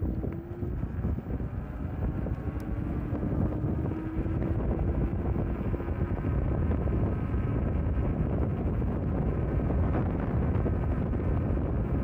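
Wind buffeting the microphone on a moving e-bike, a steady low rumble. A faint whine rises slightly through the first half.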